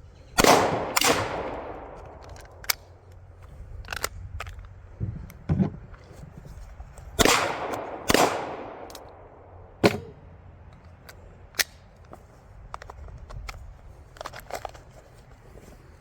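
Gunshots: two pairs of loud shots about six seconds apart, each trailing off in a long rolling echo, with several shorter, sharper cracks between and after them.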